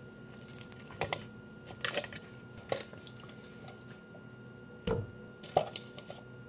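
Light knocks and scrapes as seitan dough is pulled out of a plastic food-processor bowl. About five seconds in comes a dull thud as the dough lump is set down on a wooden counter, followed by a sharp knock. A faint steady hum runs underneath.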